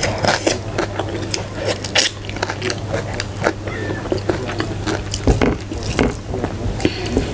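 Close-miked, open-mouthed chewing and lip-smacking of rice and vegetables, with many short wet clicks and smacks, while fingers mix rice in a steel plate. A steady low hum runs underneath.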